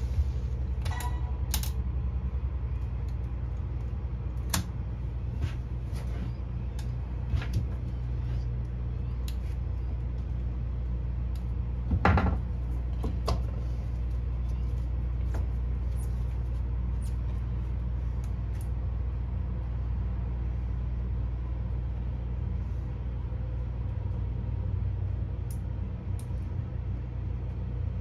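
Steady low engine hum, with scattered light clicks and knocks of splicing tools being handled and one louder knock about twelve seconds in.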